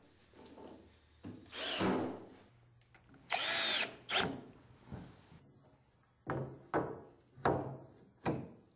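Power drill-driver running in short bursts, spinning up and down as it drives screws that fasten hidden deck clips to wooden deck boards. Near the end come several shorter, sharper bursts in quick succession.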